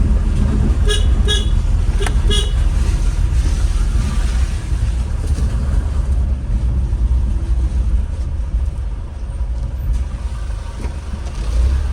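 Road traffic in a jam: a steady low rumble of engines, with several short vehicle horn toots in the first two or three seconds.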